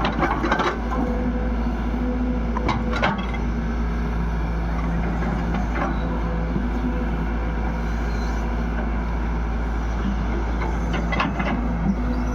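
Excavator's diesel engine running steadily, with a few sharp metallic clanks near the start, around three and six seconds in, and near the end.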